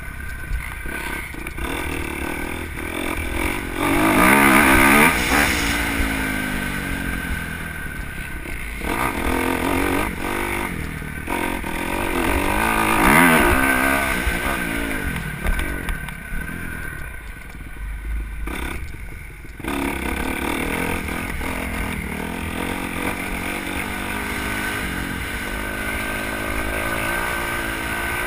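Motocross dirt bikes running on the track, their engines revving up and falling away as they pass, loudest about four and thirteen seconds in, then settling into a steadier drone.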